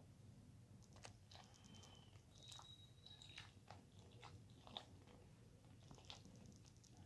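Near silence: quiet room tone with faint scattered clicks, and a thin high tone heard briefly twice.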